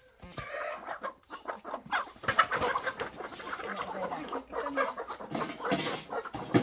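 Many laying hens crowded in wire cages clucking and squawking, with knocks of the wire cage as it is set on a dial scale; a sharp knock near the end is the loudest sound.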